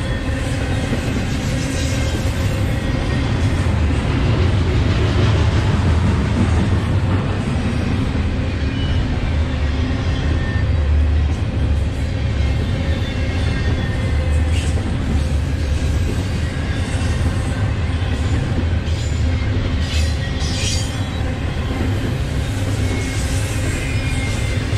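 Double-stack intermodal freight train of container well cars rolling past, its steel wheels on the rails giving a steady low rumble. A few brief high-pitched wheel squeals come through around the middle and again later.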